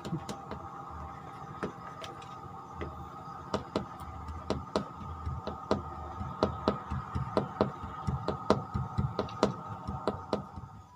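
A run of sharp, irregular knocks or clicks, sparse at first and coming quicker and louder from about a third of the way in, over a steady hum that cuts off suddenly at the end.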